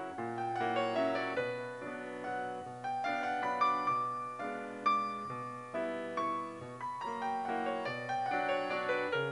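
Background piano music: a steady run of notes, each struck and decaying.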